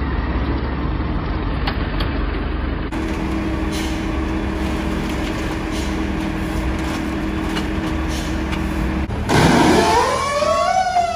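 Diesel engines of heavy forklifts running steadily, then one revs hard about nine seconds in, its pitch rising sharply.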